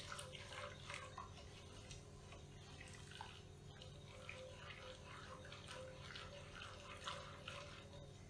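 Faint, irregular small taps and soft liquid sounds of kitchen handling, over a low steady hum.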